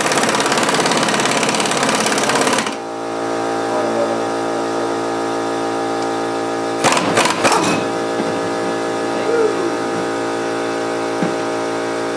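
A loud power tool rattles for the first few seconds and cuts off, leaving a steady machine hum, with a few short clattering bursts about seven seconds in.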